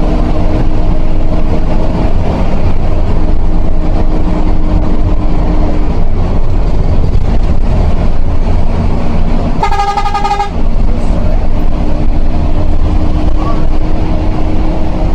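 Intercity bus under way: a loud, steady low engine and road rumble with a droning tone. About two-thirds of the way through, a vehicle horn sounds once, a short blast of under a second.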